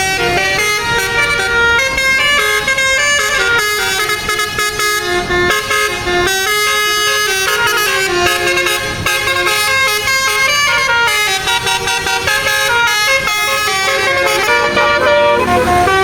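Bus 'basuri' telolet horn, a multi-note musical horn, playing a quick tune of changing notes without a break.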